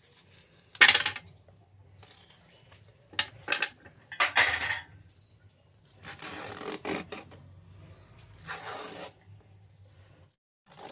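A knife chopping the end off a bottle gourd against a plastic tray, one sharp cut about a second in. Then a handheld peeler scrapes strips of skin off the gourd in several short strokes.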